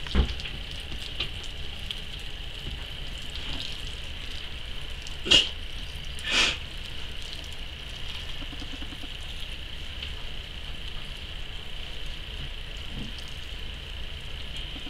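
Water from a hand sprayer hissing and pattering onto the bark-and-leaf substrate of a turtle enclosure, with two louder spurts about five and six seconds in. A short thump comes right at the start.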